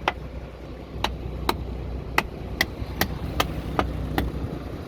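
Fishing boat engine running steadily with a low hum, under sharp knocks that come roughly twice a second.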